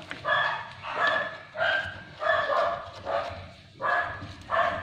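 A dog barking over and over at a steady pace, about seven barks in a little under five seconds.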